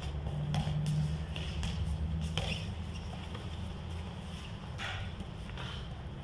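A basketball dribbled on a concrete court, with scattered bounces and players' footsteps over a steady low rumble.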